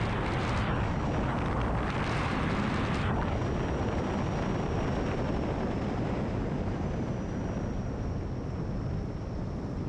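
Onboard audio from an electric radio-controlled FPV plane in flight: a steady rush of air over the airframe and microphone with a faint, high motor whine. The rushing eases about three seconds in, and the whine sinks slightly in pitch after that.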